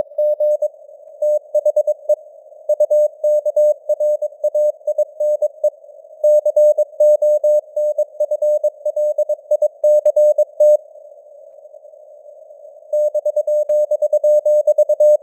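Morse code (CW) sent at 22 words per minute: a single steady tone keyed on and off in dots and dashes over simulated radio hiss. The keying pauses for about two seconds near the end, leaving only the hiss, then resumes.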